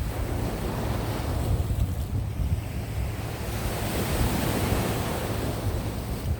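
Sea waves washing onto the shore, one wash swelling to its fullest about four to five seconds in and easing off near the end, over a steady low rumble of wind on the microphone.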